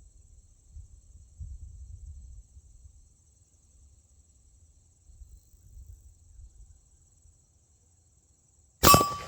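Crickets keep up a steady, high buzz over a low, uneven rumble. Near the end comes a single loud shot from a Zastava ZPAP AK-pattern rifle firing 7.62x39, followed by a trailing echo.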